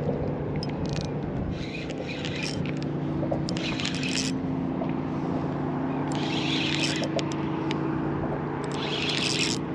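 Spinning reel being cranked to retrieve fishing line against a weight, with short hissing rushes about every two and a half seconds over a steady low hum.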